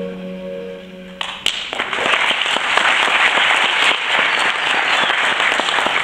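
The dance song's final held sung chord ends abruptly just over a second in, and an audience breaks into steady applause that carries on.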